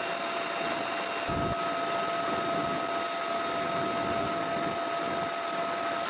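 Helicopter in flight heard from inside the cabin: a steady wash of engine and rotor noise with several fixed high whining tones, and a brief low thump a little over a second in.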